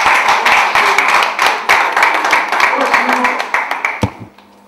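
Audience clapping, with voices mixed in. The clapping cuts off suddenly near the end with a single low thump.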